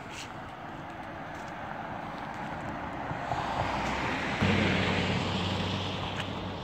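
Vehicle noise, a mix of engine and road noise that builds and is loudest a little past midway, when a low steady hum sets in, then eases slightly.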